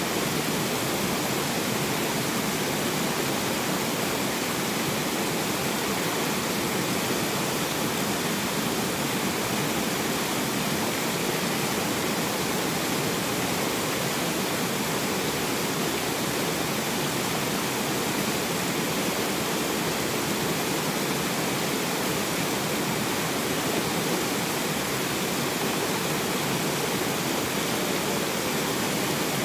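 River water rushing steadily over rocks and small cascades, an unbroken, even rush of white water.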